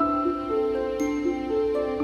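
Gentle background music: a slow melody of soft, sustained notes with light chime-like attacks.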